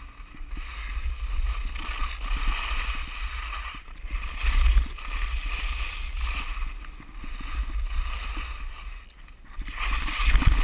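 Skis scraping and hissing over icy, hard-packed snow, rising and falling in waves with the turns, with wind buffeting the action camera's microphone as a low rumble.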